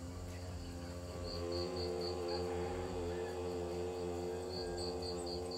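A steady drone of sustained low tones that swells about a second in, with a cricket chirping over it in short even pulses, about four a second, in two runs.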